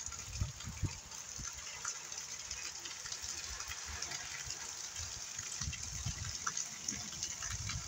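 Heavy rain falling steadily, a constant hiss, with uneven low rumbles of wind gusting on the microphone.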